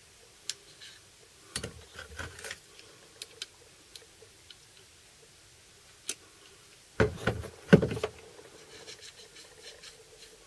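Small metal tools and parts being handled and set down, scattered clicks and knocks with two louder bursts of clatter, about a second and a half in and around seven seconds in.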